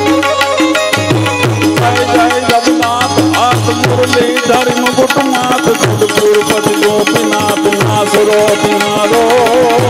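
Instrumental interlude of Gujarati santvani devotional music: a tabla plays a brisk rhythm, its bass drum strokes sliding down in pitch, under a harmonium melody.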